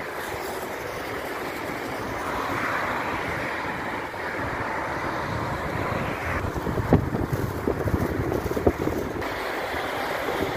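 Steady noise of traffic on a wide multi-lane city avenue, with wind buffeting the microphone, in stronger gusts from about seven to nine seconds in.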